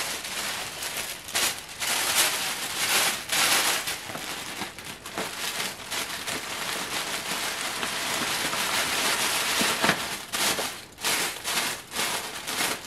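Pink tissue paper rustling and crinkling as it is pulled out, bunched and stuffed into the top of a paper gift bag. The crackling goes on throughout, with many brief louder rustles.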